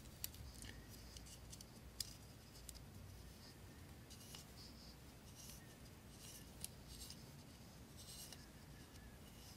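Very faint small clicks and light scratchy rubbing of a folding knife's pivot hardware being handled and fitted by hand, with a couple of sharper ticks, one about two seconds in and one later on.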